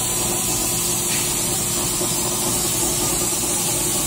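Transmission valve body test stand running: a steady machine hum under a continuous hiss of transmission fluid spraying inside the enclosure.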